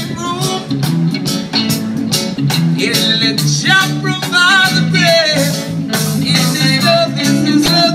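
Live band playing, with a singer over drums and guitar and a steady beat.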